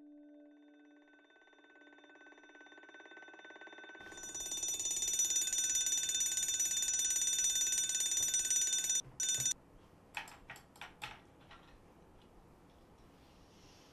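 Alarm clock ringing: a steady bell ring swells in over a few seconds, runs loud, and cuts off abruptly about nine and a half seconds in. A few quick clicks and knocks follow as the clock is fumbled and switched off.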